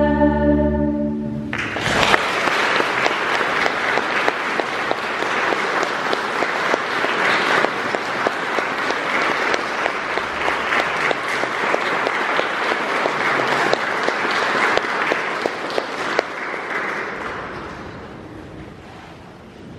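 A choir and string orchestra hold a final chord that ends about a second and a half in. The audience then applauds with dense, steady clapping, which dies away over the last few seconds.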